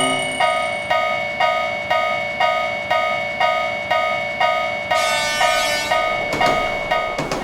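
Railroad crossing warning bell ringing in an even rhythm, about two dings a second, over a steady high tone. A burst of hiss comes in about five seconds in, and sharper knocks join near the end.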